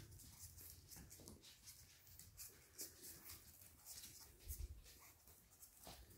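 Faint, irregular ticking and scratching of Yorkie puppies' claws and paws on a hard floor as they crawl and tussle.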